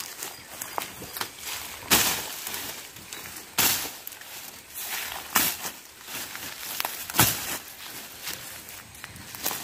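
Long-handled sickle, a billhook blade on a pipe handle, swung through weeds and brush. It makes four sharp swishing cuts about two seconds apart, with crackling of stems and dry leaves between them.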